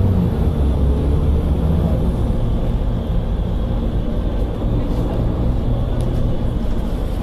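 Volvo B7TL bus's diesel engine running steadily under way, heard from inside the passenger saloon, with a deep, continuous drone.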